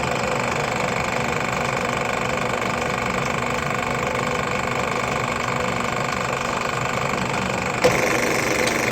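Drill press running steadily while its bit drills a shallow pin hole into a red oak knife-handle blank, with a brief knock near the end.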